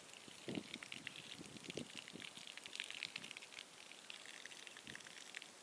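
Water pouring and spattering onto a freshly cast concrete deck as it is wetted down to cure without cracking, with a soft thud about half a second in and a few fainter ones after.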